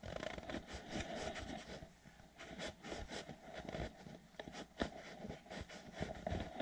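FURminator deshedding brush raking through a fluffy Welsh corgi's thick coat in quick, irregular scraping strokes as loose undercoat is pulled out, with a sharper click about three-quarters of the way in.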